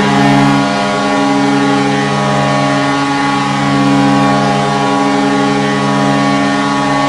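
Vancouver Canucks' arena win horn: a loud air-horn blast sounding several notes at once, held steadily without a break.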